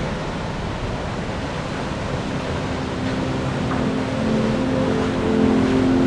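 Steady rush of a small waterfall splashing into a rock pool. About two seconds in, a low hum of several held tones comes in and grows louder toward the end.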